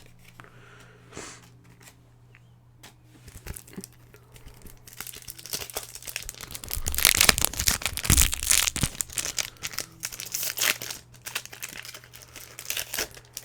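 Foil Pokémon booster pack wrapper crinkling and being torn open by hand. It starts about four to five seconds in, as dense crackling, and is loudest a couple of seconds later.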